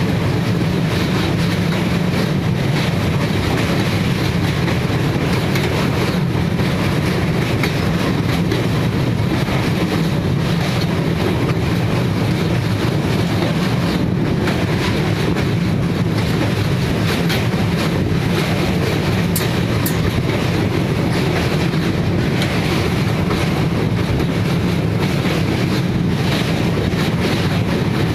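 Passenger train running at speed, heard from inside the coach at an open barred window: a steady, loud rumble of wheels on the rails, with faint clicks now and then.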